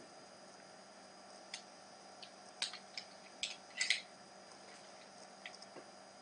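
A handful of short scratchy strokes and clicks from coloured pencils working on Pastelmat sanded paper, loudest in a cluster just before the middle, over a faint steady hum.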